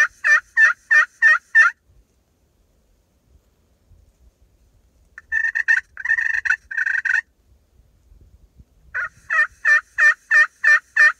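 Turkey yelping: a run of loud, evenly spaced yelps, about three a second, at the start and another near the end, with a shorter, denser burst of calls in between.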